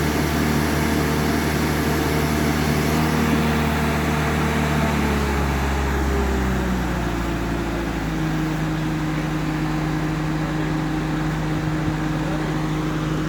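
An engine running steadily, then slowing about six seconds in and settling at a lower steady speed.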